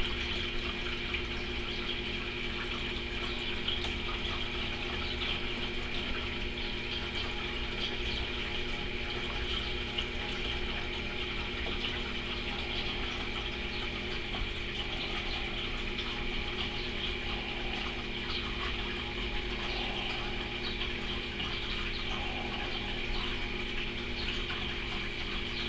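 Aquarium pump running steadily: a constant motor hum with the rush of moving water.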